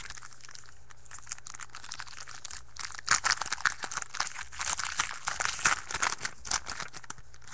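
Plastic wrapper crinkling in quick, irregular crackles as a pack of trading cards is opened and the cards are handled. It is loudest through the middle few seconds.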